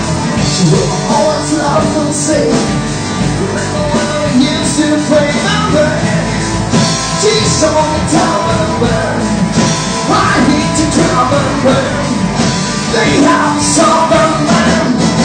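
Live rock band playing, with electric and acoustic guitars and singing.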